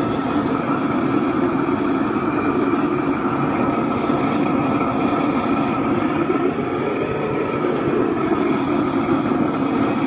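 Homebuilt LPG-fired melting furnace's gas burner running with a steady, even rush, heating a crucible of molten brass.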